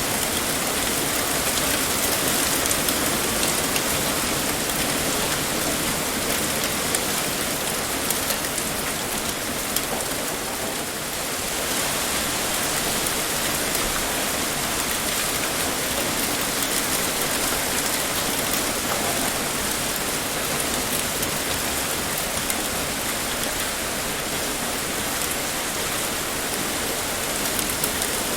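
Heavy rain pouring steadily, a dense even hiss of drops striking a surface with fine scattered drop ticks.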